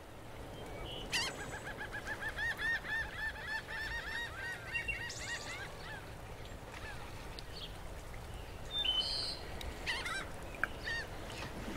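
A bird calling in a fast run of short, repeated, arching notes, several a second, for about five seconds. A few scattered calls follow near the end, over a low steady rumble.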